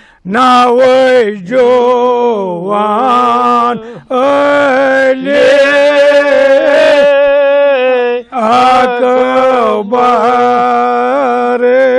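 Solo elderly man's voice chanting a Kashmiri devotional elegy for Imam Hussain, unaccompanied. He holds long, slightly wavering notes in phrases, with short breaths about four and eight seconds in.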